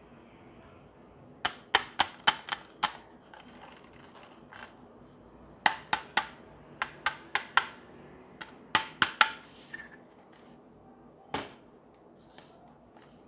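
Sharp plastic clicks and taps from a T5 LED batten light's hard plastic housing and end caps as it is handled and turned over. They come in quick clusters of several clicks, then one last click a couple of seconds before the end.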